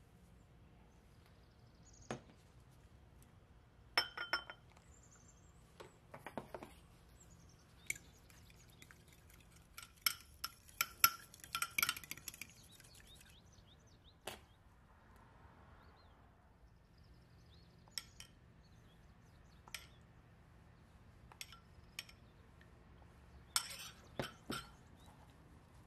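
Spoon clinking and scraping against a glass bowl while stirring a wet spice marinade, with scattered taps of glass on glass. The quickest and loudest run of clinks comes about ten seconds in.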